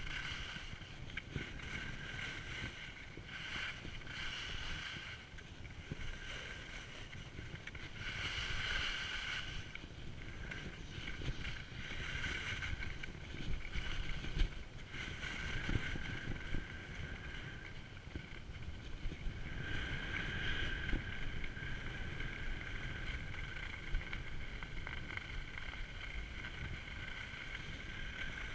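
Skis hissing and scraping over packed snow, swelling every few seconds with each turn, over a steady rumble of wind on the camera microphone.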